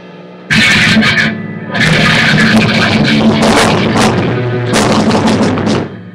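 Electric guitar through an amplifier and a drum kit playing a loud rock passage together. It starts suddenly about half a second in and stops abruptly near the end, leaving only a low amplifier hum.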